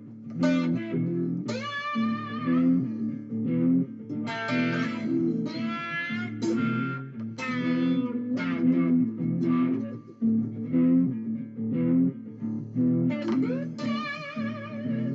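Guitar music: an electric guitar lead line with notes bent up in pitch and a wavering vibrato near the end, over a steady lower accompaniment.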